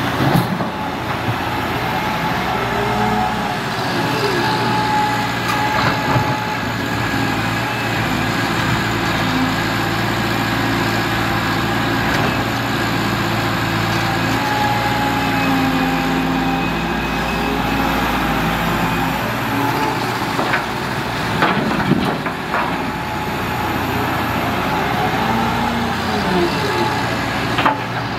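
Liebherr R930 crawler excavator working: its diesel engine runs steadily under load while the hydraulics whine and rise and fall in pitch as the boom, arm and bucket move. A few sharp knocks, a pair about two-thirds of the way through and one near the end, stand out above the engine.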